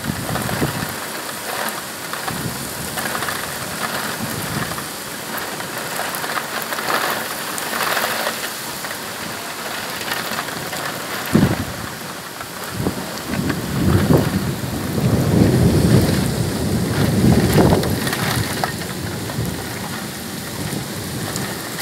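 Heavy rain of a violent thunderstorm falling steadily. About halfway through comes a sharp thunderclap, followed a little later by several seconds of loud rolling thunder.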